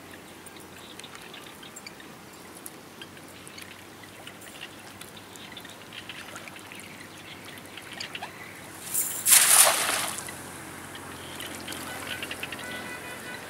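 Faint trickling and dripping of water, then a loud splash of water lasting about a second, around nine seconds in.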